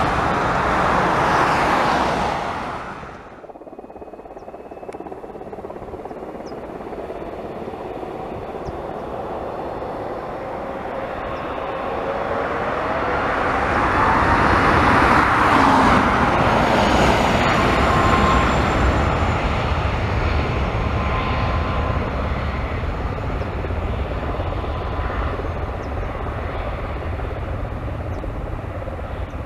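Boeing 737 MAX 8's CFM LEAP-1B jet engines running at low power as the airliner rolls along the runway, their rumble and whine building to a peak about halfway through as it passes close, then easing off. A louder rushing sound cuts off suddenly about three seconds in.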